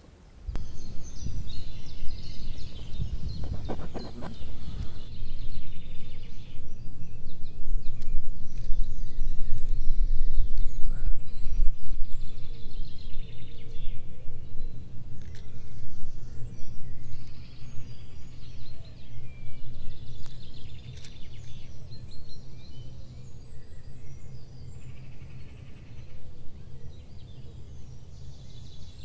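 Small birds singing and calling on and off over a steady low rumble.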